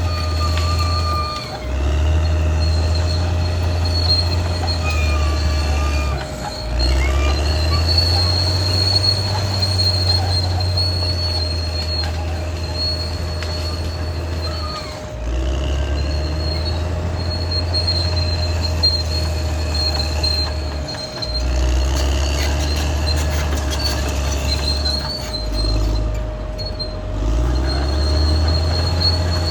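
Caterpillar D6R XL crawler dozer at work: its diesel engine drones, dipping and picking up again several times, while the steel tracks squeal and grind.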